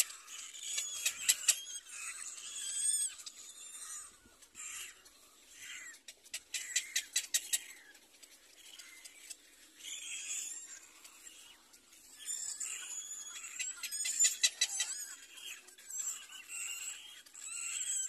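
Little black cormorant chicks begging at the nest with repeated high calls. Quick runs of clicks come about a second in, around seven seconds in and around fourteen seconds in.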